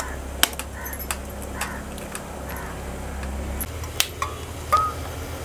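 Scattered sharp clicks and clinks: a knife tapping an eggshell to crack it and a steel ladle knocking against a small steel bowl, over a steady low hum.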